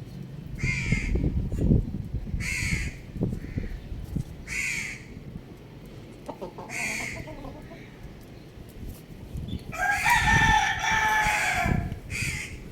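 A young rooster crows once: a single long call of about two seconds, starting about ten seconds in. Before it, another bird gives short calls that fall in pitch, repeated every couple of seconds.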